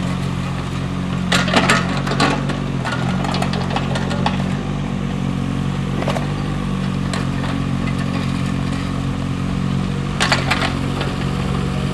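Mini digger's engine running steadily as it regrades loose soil, with clusters of metal clanks and rattles from the machine about a second and a half in and again near the end.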